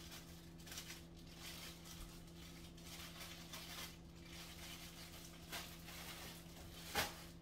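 Faint rustling and handling noises, with one sharp knock or click about seven seconds in, over a steady low hum.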